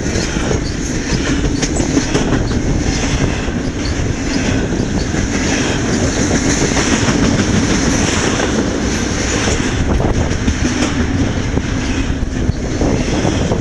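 Double-stack container freight train passing close by at speed. Its well cars run with a steady rumble and a rapid clicking of wheels on the track.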